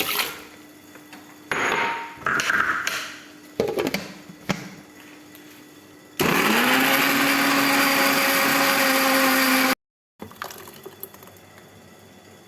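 Electric blender motor spinning up and running steadily for about three and a half seconds, then cutting off suddenly. Before it come scattered knocks and clinks of kitchen items being handled.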